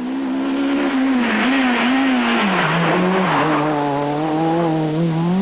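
Renault Clio Maxi Kit Car rally car's engine running hard as the car approaches and passes through a bend. The engine note drops about halfway through and then holds lower, with a rushing hiss in the middle.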